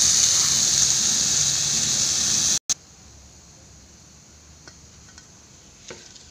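Chopped okra frying in oil in a kadhai, a steady sizzling hiss that cuts off abruptly about two and a half seconds in. After that it is quiet, with a few faint ticks.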